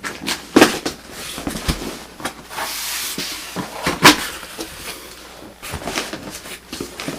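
Cardboard box and packaging being opened and handled: a string of knocks and rustles, with a loud thump about half a second in and another about four seconds in.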